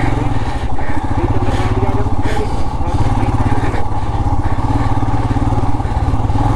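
Royal Enfield Himalayan 411's single-cylinder engine running steadily with an even firing beat as the motorcycle is ridden along.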